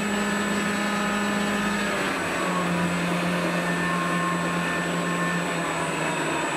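Sound module in a radio-controlled Yak-12 model playing a simulated piston aircraft engine: a steady drone that steps down in pitch about two seconds in and again near the end. Thin high whines run above it.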